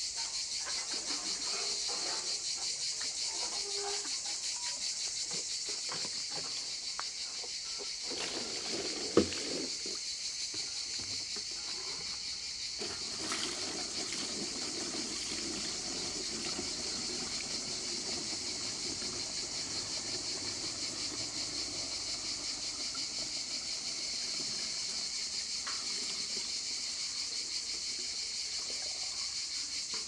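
A steady, high, finely pulsing insect chorus. There is a single knock about nine seconds in. Water is poured from a metal bucket into plastic bottles, a soft rushing through the middle of the stretch.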